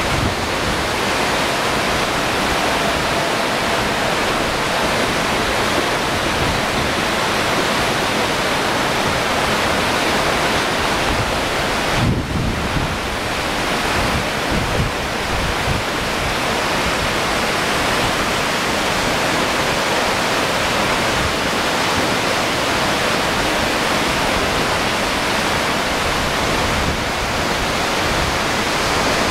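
Silt-laden mountain river in flood, its turbulent water rushing past in a steady, loud roar.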